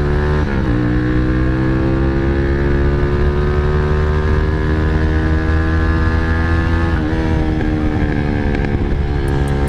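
Motorstar Z200S motorcycle engine under hard acceleration, its pitch climbing through each gear, with brief dips at upshifts about half a second in and around seven seconds. It pulls cleanly on its newly fitted Splitfire twin-core plug wire, which the owner says gives a steady exhaust note with no misfire.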